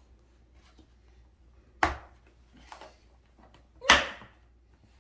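The plastic tray of a Bright Starts I Spot Elmo baby walker being pushed down hard onto its frame, giving two loud sharp plastic snaps about two seconds apart as it clicks into place. The second snap is a little longer.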